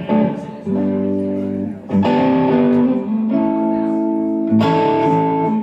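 Live rock band playing an instrumental passage: electric guitars strike a new chord about every one and a half seconds over held Hammond organ chords.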